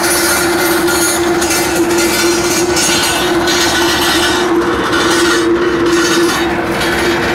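A tractor-mounted stone crusher on a New Holland T7200 running over rocky ground: a steady mechanical hum with a constant rattle and crackle of rock being broken and thrown.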